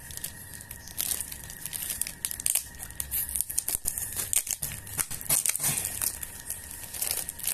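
Clear plastic packaging crinkling and tearing as it is pulled open by hand, in a quick run of irregular crackles.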